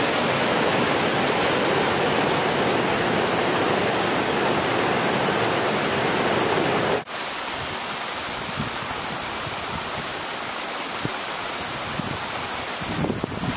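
Yosemite Creek rushing over granite slabs near the brink of Upper Yosemite Fall, a loud, steady rush of whitewater. About halfway through it cuts off abruptly to a quieter steady hiss with a few faint clicks.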